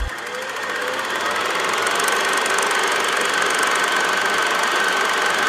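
Film projector sound effect: a steady mechanical clatter of rapid ticks with a thin, steady whine.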